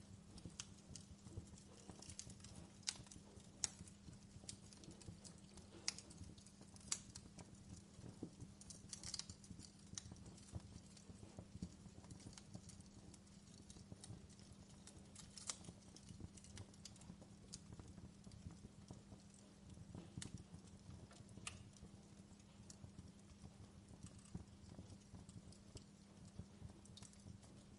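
Faint crackling fire: irregular sharp pops and snaps, a few louder ones, over a low steady hum.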